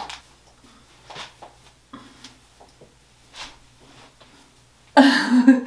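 Faint clicks and rustles as long hair is worked with a curling iron and shaken out by hand, then a woman's voice about five seconds in.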